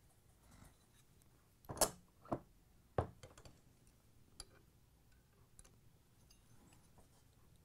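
A few short metal clicks and taps from an Allen key and pliers being handled against a washer motor's pulley while its set screw is tightened: three louder ones about two to three seconds in, then a few fainter ticks.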